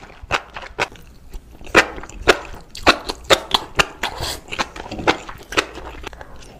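A string of short, sharp clicks and taps, irregularly spaced at about two a second.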